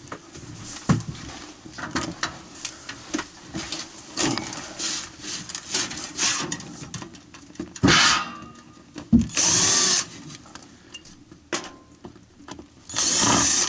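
Cordless drill-driver run in two short bursts against the sheet-metal plate around a stove chimney pipe, between clattering and knocking of handling the tool and the metal.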